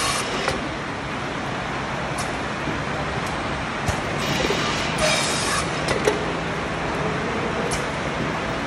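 Automatic heat transfer printing machine for plastic containers running: a steady mechanical clatter with sharp clicks every second or two as it indexes, and a burst of hissing air from its pneumatic cylinders about four and a half seconds in.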